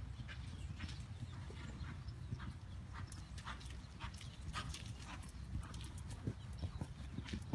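Hoofbeats of a horse cantering on a sand arena: a quick, uneven run of soft footfalls over a steady low rumble.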